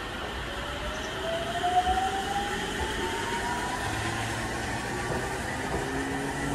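Electric commuter train pulling out and gathering speed, its motors giving a thin whine that rises steadily in pitch, over a steady rumble of the cars rolling past on the rails.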